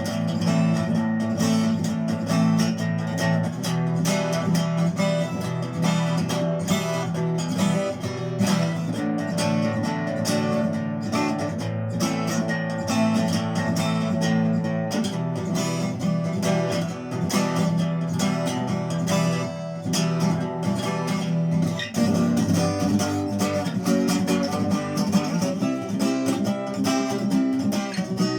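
Acoustic guitar strummed steadily, playing the chords of a rock song, with a change of chord about three quarters of the way through.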